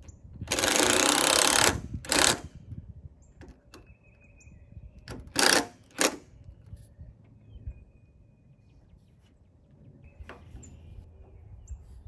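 Cordless drill driving screws into a wooden post in four runs: one long run of about a second, a short one just after it, then two short bursts around the middle.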